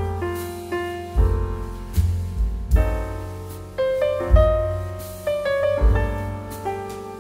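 Background piano music: notes struck one after another and left to ring and fade, over deep bass notes.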